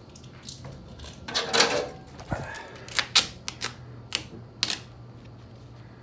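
Handling noise from a phone camera held against a jacket: a burst of rustling about a second in, then a quick run of sharp clicks and taps.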